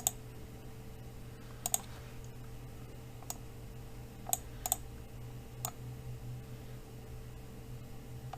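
Scattered single clicks from a computer mouse and keyboard, about seven in eight seconds, over a faint steady electrical hum.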